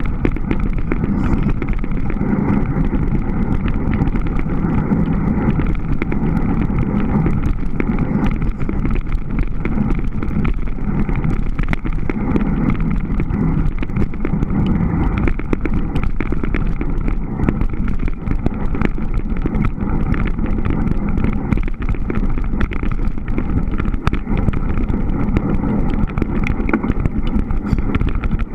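Surly Moonlander fat bike riding over snow: a steady, loud, muffled rumble of the fat tyres and drivetrain, heard from a camera mounted on the bike.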